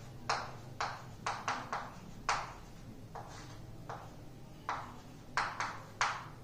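Chalk on a chalkboard while words are written: about a dozen short, sharp strokes and taps at an uneven pace.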